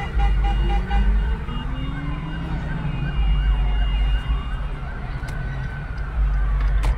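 Emergency vehicle sirens wailing, several overlapping with rising and falling pitch, over a low rumble heard from inside a car. A sharp click near the end.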